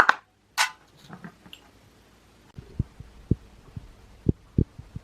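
Dull low thumps of a person exercising on the floor in a home workout, coming irregularly about twice a second in the second half, after two short hissy sounds at the start.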